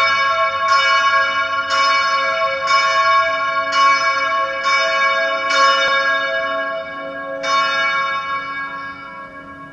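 A church bell tolling: the same bell struck about once a second, seven strikes with a longer pause before the last, its ring dying away near the end.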